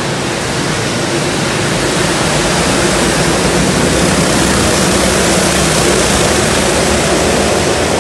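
Several go-kart engines running together as the karts race round an indoor hall: a loud, steady wash of engine noise with faint engine tones beneath it.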